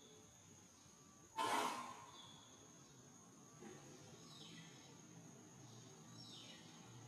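Quiet outdoor ambience: a steady high insect drone with a few short falling bird chirps, and one brief loud rush of noise a little over a second in.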